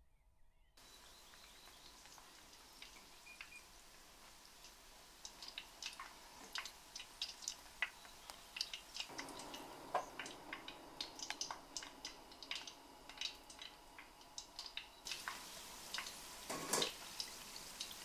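Sesame balls deep-frying in hot oil in a wok: a faint steady sizzle with frequent crackling pops that grow busier about halfway through, and a louder crackling burst near the end.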